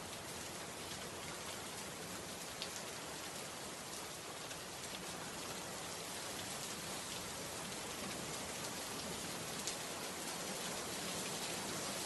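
Steady hiss of rain falling, with a few sharper drop ticks now and then.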